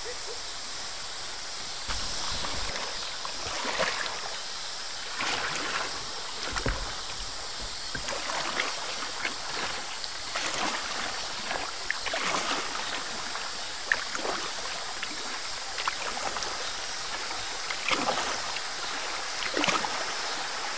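River water rushing over a shallow rocky riffle around a kayak's bow, with irregular paddle splashes and water slapping the hull. Two dull low bumps come about two seconds in and again near the middle.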